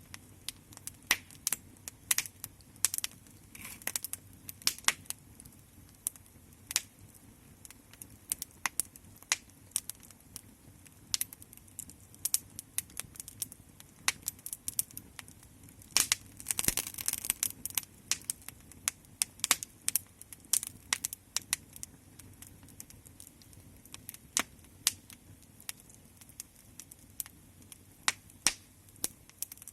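Wood fire crackling: irregular sharp pops and snaps, with a denser flurry of crackling about sixteen seconds in that lasts a couple of seconds.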